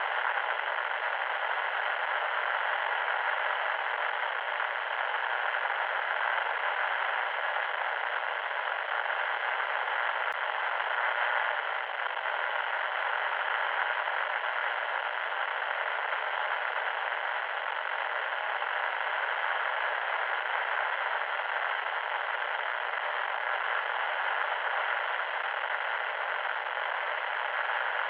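Loud static noise: a steady hiss with no bass and little treble, running without a break or change.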